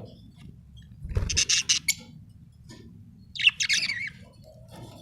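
Budgerigar chirping: a quick run of high chirps starting with a low thump about a second in, then a louder, warbling chirp at about three and a half seconds.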